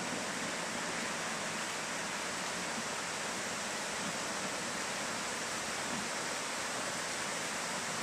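Steady rush of an underground waterfall pouring down inside a brick culvert tunnel, an even unbroken roar of falling water.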